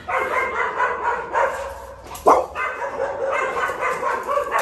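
American pit bull terrier whining in repeated pitched calls, with one short, loud yelp about two seconds in: an excited dog jumping at the gate.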